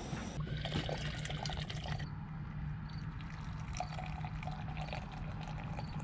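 Cowboy coffee poured from a stainless steel camp coffee pot into a mug: a thin, trickling pour.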